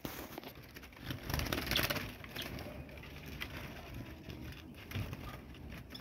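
Faint rustling and soft knocks of handling noise, with cloth brushing close to the phone.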